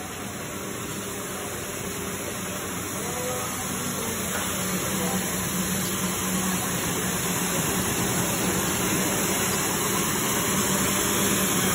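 Ride-on floor scrubber running: a steady hiss of its brushes and vacuum with a low hum, growing louder as it drives closer.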